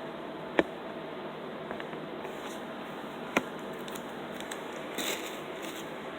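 A 4K Ultra HD disc package being handled: two sharp clicks about three seconds apart, then a brief crinkle of packaging near the end, over a steady background hiss.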